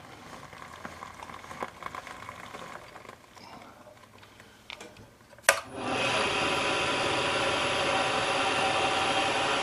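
Milling machine started with a sharp click about five and a half seconds in, its spindle then running steadily with a high whine. Before that there are only a few faint clicks.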